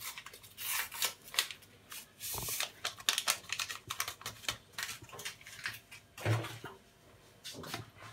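Scattered light clicks, taps and rustles from handling things on a kitchen counter, with a brief soft hiss about two to three seconds in and a dull knock about six seconds in.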